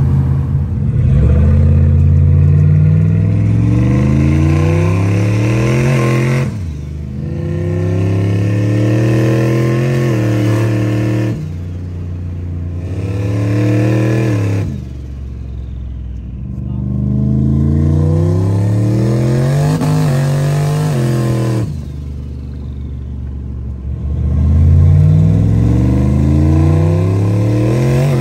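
Turbocharged LS1 V8 in a Holden VL Commodore accelerating hard. Its revs climb and then drop back sharply five times, as if pulling through the gears.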